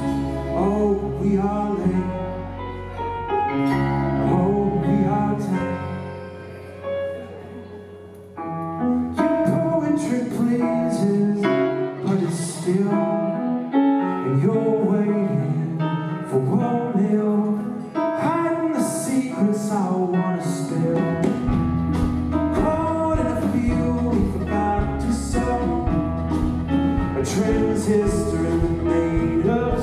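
A live indie band plays a song: a male lead vocal over keyboard, with cello, bass guitar and drums. The music thins out and gets quieter for a few seconds, then the full band comes back in about eight seconds in, and a heavier bass line enters past the two-thirds mark.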